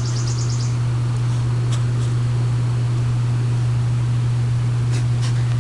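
A steady low hum, with a few faint clicks about two seconds in and again near the end.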